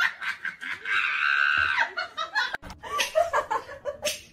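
Person laughing in quick repeated snickers, with a high drawn-out cry about a second in.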